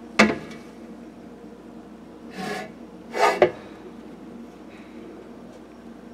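Handling noises of a welded metal exhaust pipe on a bench scale: a sharp knock just after the start, a brief scrape about two seconds in, then a louder knock with a short clatter and a little ringing.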